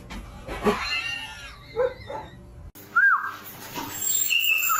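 A cat meowing, with pitched calls that rise and fall in the first two seconds. After a break come a short high chirp and, near the end, a steady high-pitched tone.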